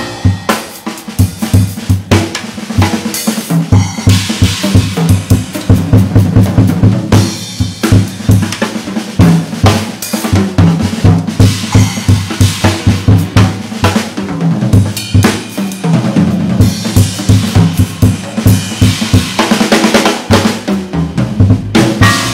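Drum kit playing a fast, busy passage, kick drum and snare with rimshots and rolls to the fore, in dense rapid strokes.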